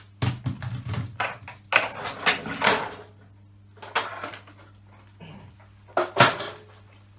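Tools and metal hardware clattering and knocking as they are picked up and set down, cleared off a workbench. There is a busy run of clatter through the first three seconds, then single knocks about four and six seconds in.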